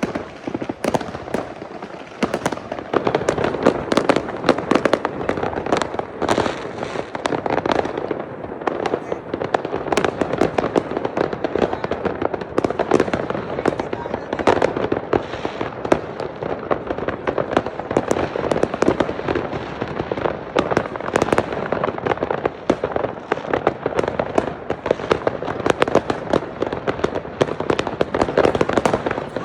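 Dense, continuous barrage of consumer fireworks and firecrackers going off all around, many bangs and crackles overlapping without a break.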